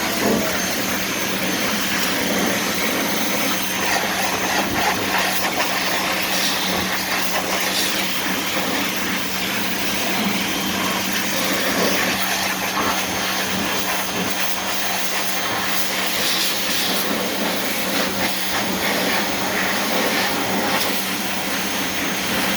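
Pressure washer running steadily and spraying water, a constant hiss of spray over a steady motor hum.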